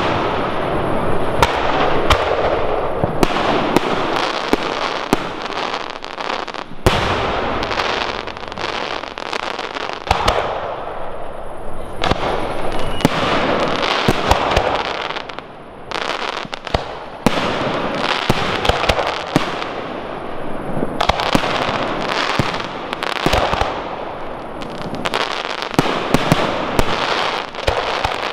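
Large fireworks display: shells and batteries bursting in quick succession with many sharp bangs and dense crackling. There is a brief lull about halfway through.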